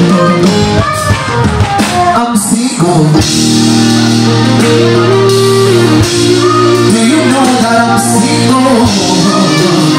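Live band music: wordless sung runs over guitar and band accompaniment with sustained low notes.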